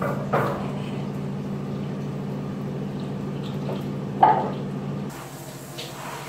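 Steady low hum with two sharp knocks as a wire hamster cage is handled, the second knock the loudest. Near the end the hum stops and a fainter, even hiss takes over.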